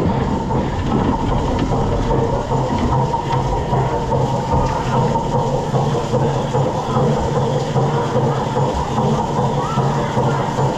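Steady, loud rush of water with a low rumble underneath, running without a break through the flooded-mine boat ride.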